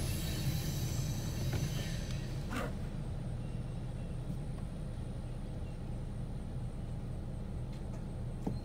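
Steady low rumble of a stopped car idling, heard from inside the cabin, with the rolling noise of the departing freight train dying away over the first couple of seconds.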